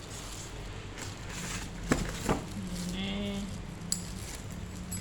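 Metal parts of a meat grinder being handled during unboxing, with two sharp clinks about two seconds in, a half-second apart.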